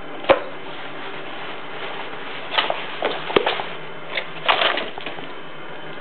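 Open cardboard cereal box being batted and scrabbled at by a kitten: scattered knocks and rustles, with a sharp knock near the start, another around the middle, and a short burst of rustling about three-quarters through, over a steady low hum.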